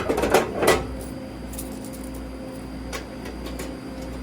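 A quick run of metal knocks and clatters in the first second as the soda vending machine's coin collection is handled, then the machine's steady electrical hum with a few light clicks.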